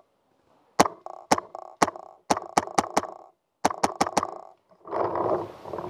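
Paintball marker firing about eleven sharp pops in uneven bursts, some as quick as four a second, followed by a second or so of rough handling noise near the end.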